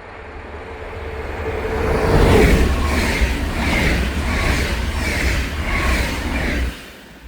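A train passing at speed: it grows louder as it approaches, goes by about two seconds in with a steady rhythmic pulse from the wheels, and stops abruptly near the end.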